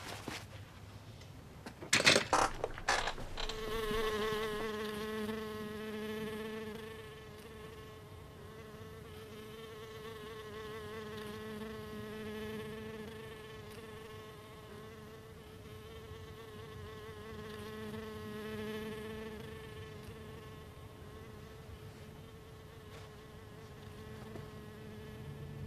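A few sharp knocks, one right at the start and a quick cluster about two seconds in, then a steady buzzing drone with a slightly wavering pitch, like a fly in flight.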